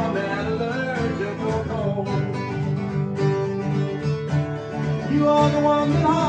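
Country song played on guitars: an acoustic guitar strummed under an electric guitar, with some held, bending notes in the second half.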